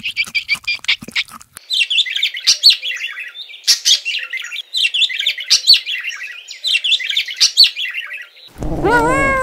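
A yellow (lutino) Indian ring-necked parakeet chattering in a fast run of high, repeated chirps and squawks. Near the end a kitten starts to meow.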